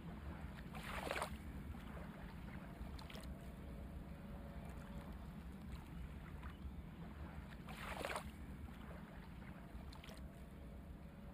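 A steady low rumble with two short bursts of hiss, about a second in and again about eight seconds in. The later burst is an aerosol spray-paint can spraying.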